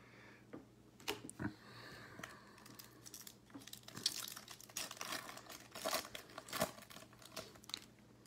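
Foil wrapper of a Topps baseball card pack being torn open and crinkled by hand: scattered crackles at first, then a busy run of crinkling rustles from about four seconds in.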